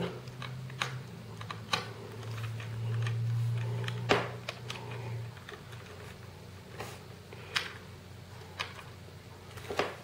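Small screwdriver clicking and scraping against tiny screws and the metal frame as the hard-drive bracket is screwed down inside a 2010 MacBook Pro, in light, irregular clicks. A low steady hum runs underneath and stops about five seconds in.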